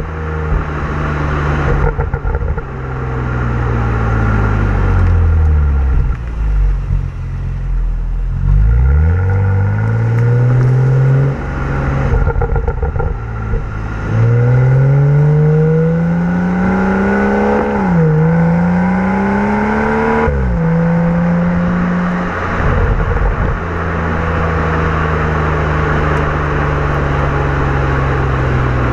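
2015 BMW M235i's turbocharged 3.0-litre straight-six through its stock exhaust, driving in an automatic transmission's gears: the engine note falls as the car slows, then climbs twice under acceleration with quick dips in pitch at the upshifts, holds steady for a while, and falls again near the end.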